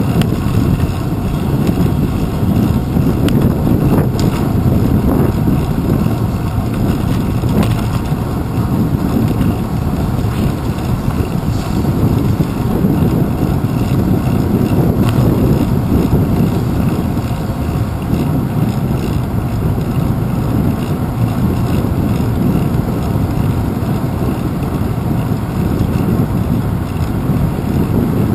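Steady low rumble of wind buffeting and road vibration picked up by a handlebar-mounted GoPro Hero 2 on a moving bicycle, with a few faint clicks from bumps.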